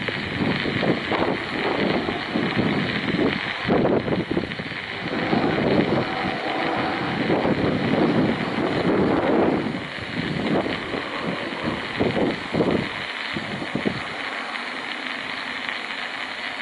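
Wind buffeting the microphone in irregular gusts over the steady, distant hiss of a Boeing 777-200ER's jet engines as the airliner taxis along the runway after landing.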